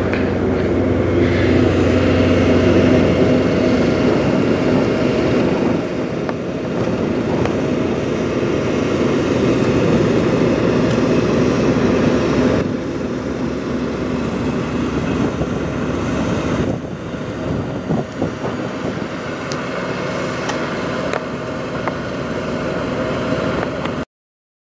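Semi truck diesel engine idling with a steady deep rumble and drone, the level dipping slightly about halfway through, then cutting off abruptly near the end.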